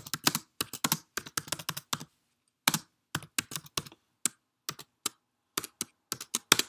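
Computer keyboard keys clicking as a phrase is typed: a quick run of keystrokes, a short pause about two seconds in, then slower, spaced-out keystrokes.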